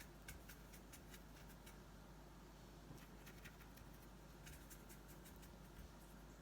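Near silence with scattered faint light clicks and taps, a few bunched together near the end: a brush mixing watercolour paint in a palette.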